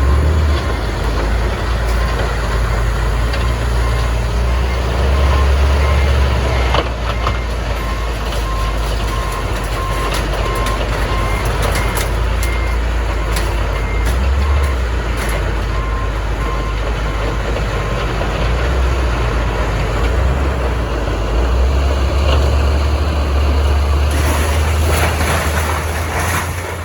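A heavy vehicle's engine runs with a steady low rumble while a reversing alarm beeps repeatedly. A hiss rises near the end.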